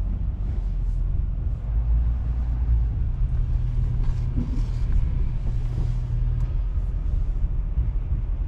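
Diesel engine running at low speed: a steady, low rumble.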